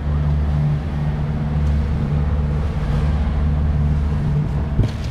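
A boat's motor running steadily at low trolling speed, a low, even drone heard from on board. A short knock near the end.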